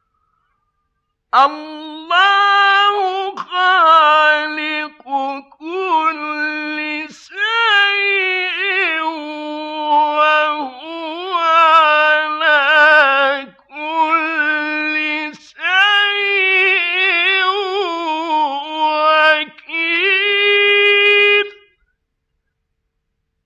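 A man's voice reciting the Quran in the melodic mujawwad style: long held, ornamented phrases that wind up and down in pitch, broken by short pauses for breath. It begins about a second in and stops a couple of seconds before the end.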